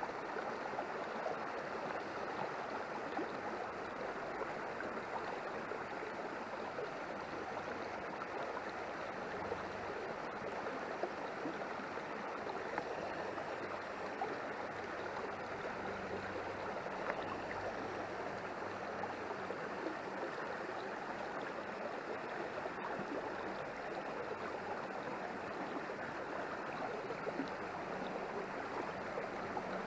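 Small rural stream running steadily after heavy rain, an even rush of water.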